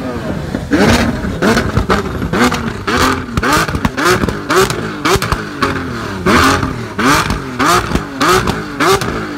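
Lamborghini Aventador's naturally aspirated V12 revved in place with quick repeated throttle blips, about one and a half a second, each rev climbing and dropping back sharply.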